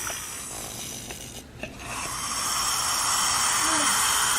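A snake's hiss: a steady breathy hiss that swells about two seconds in and cuts off suddenly at the end.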